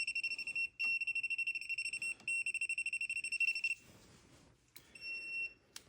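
Non-contact voltage tester beeping rapidly in a high, shrill pulsed tone, signalling live voltage at the freshly wired outlet. The beeping breaks off briefly twice, stops about two-thirds of the way through, and gives one short beep near the end.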